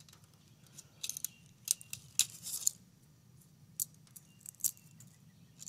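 Brittle carbonized pineapple leaves snapping off by hand: a scatter of small, sharp, crisp snaps and crackles, with a short run of crackling about two seconds in.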